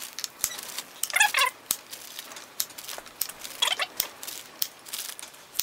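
Kitchen knife topping small carrots on a wooden chopping board: a run of sharp clicks and taps as the blade cuts through and hits the board. Two short, high, wavering squeals come about a second in and again about three and a half seconds in.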